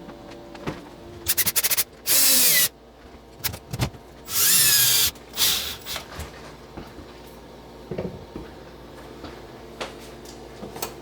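Power drill driving wood screws through a microwave mounting bracket into a wall stud. A few quick stuttering pulses come first, then two short full-speed runs of under a second each, about two seconds apart, followed by lighter handling noise.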